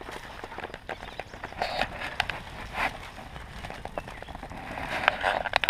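Small dry twigs and spruce branches snapping and crackling irregularly as a newly lit campfire catches.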